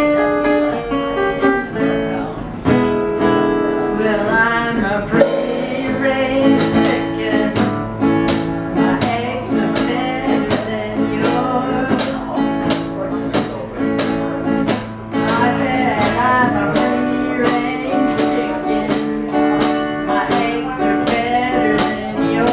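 Live band music: an acoustic guitar and a drum kit playing an upbeat song with a steady beat.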